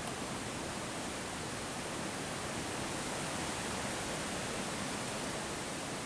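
Wind at night: a steady, even rushing hiss that swells slightly in the middle, with no single gust standing out.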